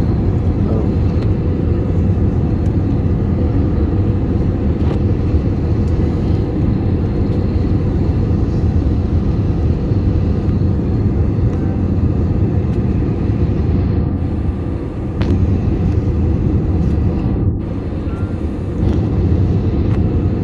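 Steady jet airliner cabin noise in flight: a deep, even rumble of engines and rushing air. The level dips briefly twice in the second half.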